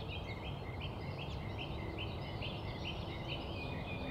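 A bird chirping in a rapid, even series of short notes, about three a second, over a steady outdoor background hiss.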